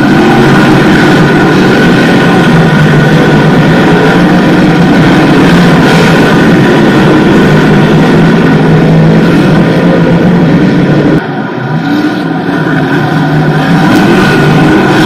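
Small-block modified dirt race cars' V8 engines running at race speed through the turn, loud and continuous as several cars pass. The sound drops briefly about eleven seconds in, then builds again.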